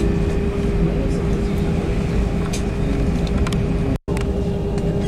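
Airliner cabin noise on the ground: a steady rumble of the engines with a steady whine running through it. The sound cuts out for an instant about four seconds in.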